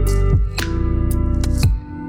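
Background music: sustained melodic notes over a steady bass, with crisp percussion hits about every half second to second and a brief drop near the end.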